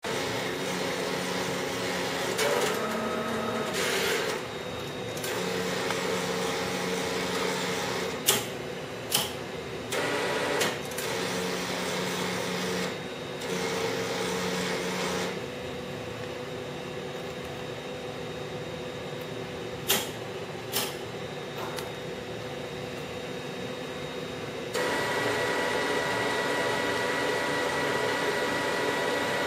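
Wide-format inkjet printer running a sublimation print job: the print-head carriage and feed motors whir in passes that change every second or two, with a few sharp clicks, settling into a steadier hum with a faint high whine near the end.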